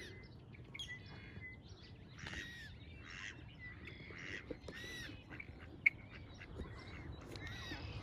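Songbirds chirping and calling in quick, short, arching notes, some buzzy. A single sharp click about six seconds in.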